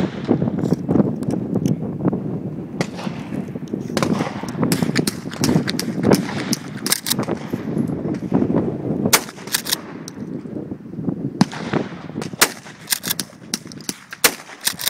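Gunfire from several guns on a shooting line: many sharp shots at irregular intervals, some in quick runs of two or three.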